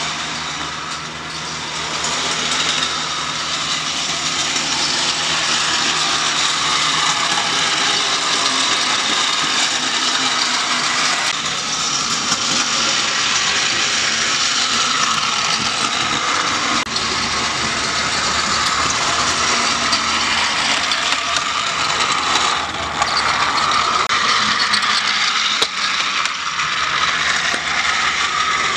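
Battery-powered Trackmaster toy engine with a high-speed motor running at speed on plastic track: a steady whirring and rattling of motor and gears.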